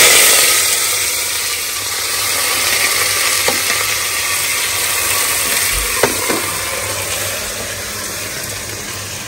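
Washed rice frying in hot oil with cumin and whole spices, sizzling as it is stirred. The sizzle is loudest at first and settles to a steady hiss, with a couple of light knocks of the spoon against the pot.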